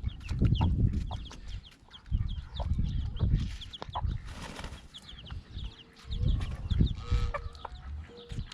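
Chickens clucking, with chicks cheeping in many quick, high, falling peeps throughout, over low thumps and rustling close to the microphone.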